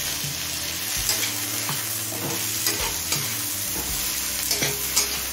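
Chopped tomato with onions and whole spices sizzling as it fries in hot mustard oil in a kadai, stirred, with irregular clicks of the utensil against the pan over a steady frying hiss.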